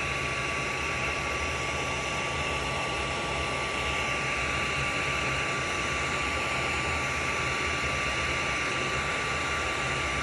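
Electric heat gun running steadily to shrink heat-shrink tubing over a soldered connector: a constant hiss of blown air with a steady high whine from its fan motor.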